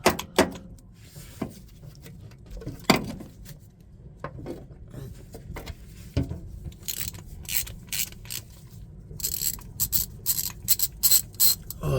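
Ratchet wrench on a spark plug socket being worked to unscrew a spark plug: a few separate knocks of the tool, then a quick run of sharp clicks in the second half.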